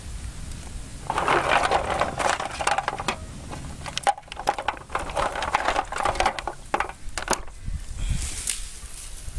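Clams being stirred and scooped by hand in a metal basin of water, their shells clattering against each other and the basin in two spells of a couple of seconds each.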